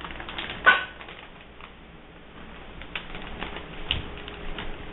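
Clear plastic zip-top bag crinkling and rustling as it is handled, with scattered small clicks and one sharp crackle just under a second in.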